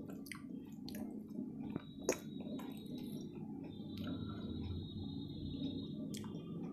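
Close-miked hand-eating sounds: fingers squishing and scooping veg fried rice, with chewing and sharp wet mouth clicks, one louder click about two seconds in. A faint steady high tone runs under it twice.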